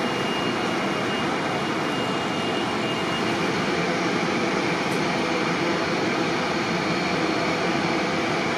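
Steady rush of machinery and air noise in a large aircraft hangar, even in level throughout, with a faint high whine held underneath.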